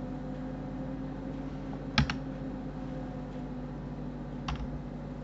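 Computer keyboard keys struck a few times: a quick double click about two seconds in and a single one near the end. Under the clicks runs a steady low hum.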